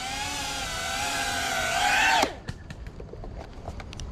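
FPV quadcopter's brushless motors and propellers whining, the pitch wavering slightly with the throttle. About two seconds in it rises briefly, then cuts off and winds down within a fraction of a second, as the motors stop or the quad is disarmed. Faint clicks follow.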